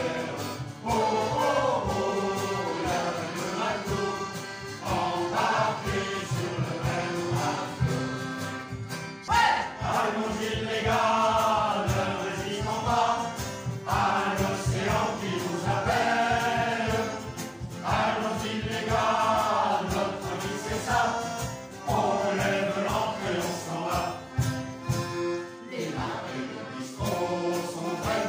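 Mixed choir of men and women singing together in phrases, with a short break between verses.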